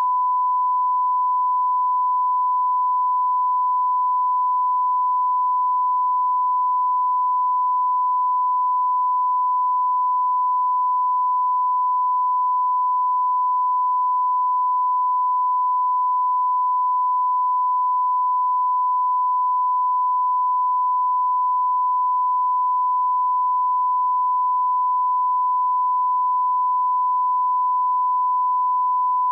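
A single unbroken electronic tone, pure and steady in pitch and loudness: a broadcast test or off-air tone.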